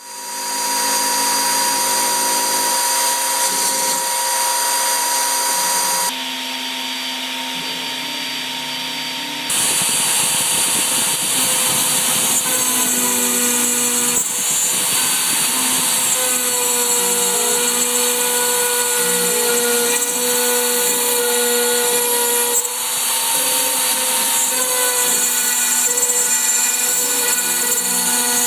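CNC router with its spinning bit cutting into plywood: a steady machine whine and whirr made of several tones that shift to new pitches every few seconds as it moves. The sound drops and thins for a few seconds about six seconds in, then returns at full level.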